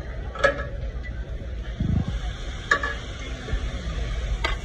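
Metal spatula clicking against a hot teppanyaki griddle three times, about two seconds apart, as vegetables are stirred over a steady sizzle. A dull thump comes near the middle.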